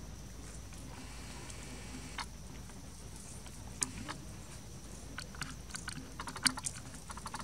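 Crackling clicks of dry leaves under two baby long-tailed macaques scuffling on a leaf-strewn concrete ledge. The clicks come singly at first, then thicken into a quick, louder patter about five and a half to seven seconds in.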